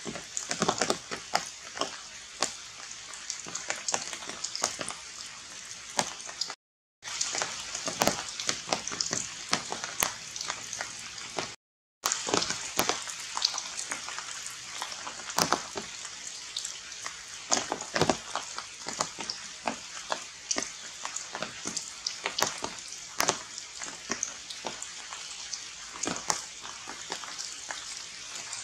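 Raindrops dripping and pattering irregularly on forest leaves over a steady high hiss, cutting out briefly twice.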